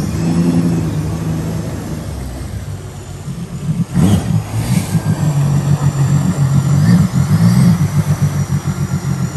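Mini jet boat's engine running at low speed, then about four seconds in the throttle opens and it runs louder and pulsing as the jet drive throws a churning wash of water behind the boat.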